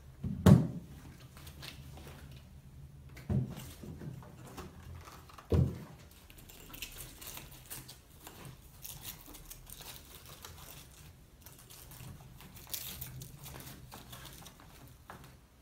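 Handling a fabric carry bag on a folding luggage trolley: a sharp knock about half a second in, two softer thumps a few seconds later, then soft rustling and scratchy crinkling of fabric and straps.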